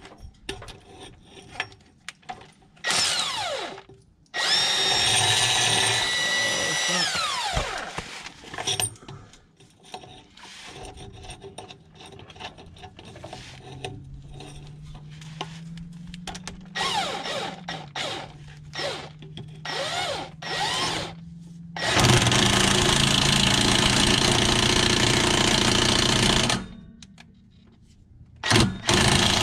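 Power tool driving the bolt of a tailpipe expander in several bursts, spinning up and winding down, as the exhaust pipe end is flared out. The longest and loudest run comes near the end and lasts about four seconds.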